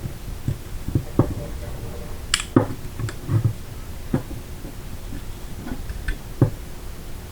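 Irregular light clicks and taps, about ten, from a safety selector switch and small parts being worked into a 3D-printed AR-9 lower receiver. The sharpest click comes about two and a half seconds in.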